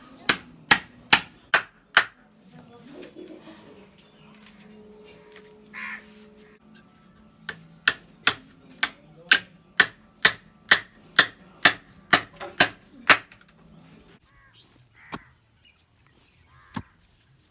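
Hammer driving nails into a wooden frame: sharp blows at about two to three a second, in two runs with a pause of several seconds between, over a steady high insect whine. Near the end, a few soft thuds of a hoe digging into soil.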